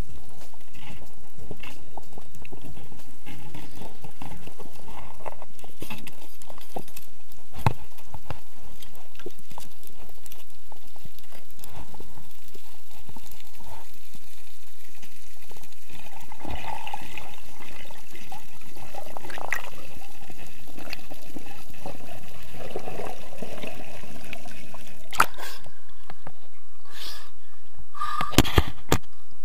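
Underwater sound heard through an action camera's housing: water sloshing and gurgling, with a few sharp splashes near the end as the camera breaks the surface.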